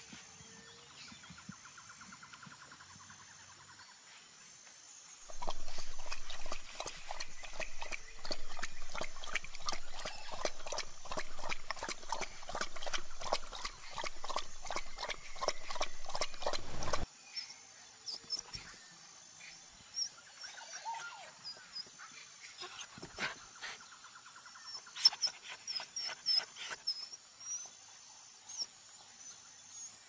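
Puppy eating from a bowl: a loud, fast, continuous run of crisp mouth-and-bowl sounds lasting about twelve seconds, which stops abruptly. Faint, quiet sound comes before it, and scattered light clicks and a few high chirps follow it.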